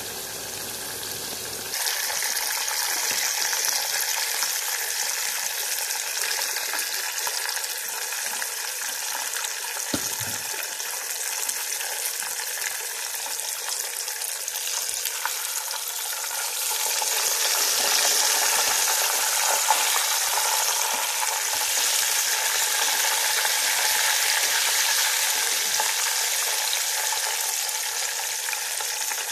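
Chicken legs deep-frying in hot oil in a small pan: a steady sizzling crackle that gets louder about two seconds in.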